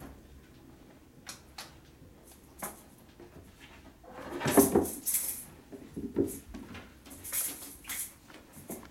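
Norwegian Forest Cat kittens scrambling over a wooden shelf and a carpeted cat-tree perch: scattered light knocks and scrapes of paws and claws, with a louder flurry of bumps about four to five seconds in.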